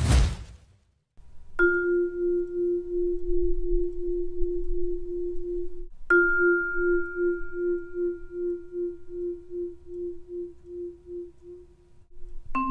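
Vibraphone note struck with a yarn mallet and left ringing with the motor-driven vibrato fans on at medium speed, its loudness pulsing about three times a second; the same single note is struck again about six seconds in and fades slowly, still pulsing. A short whoosh comes at the very start, and a lower note is struck near the end.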